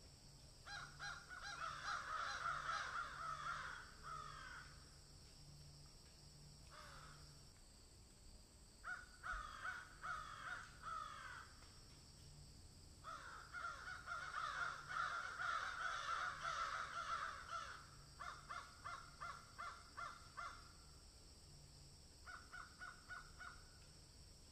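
Birds calling: harsh, overlapping calls in bouts of a few seconds, with runs of separate calls about three a second near the end.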